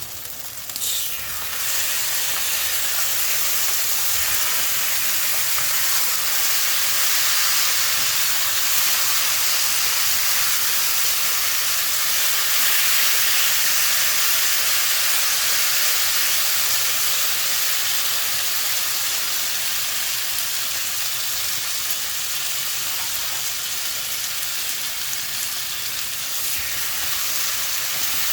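Kimchi fried rice sizzling in a hot pan, a steady hiss that swells up about one and a half seconds in.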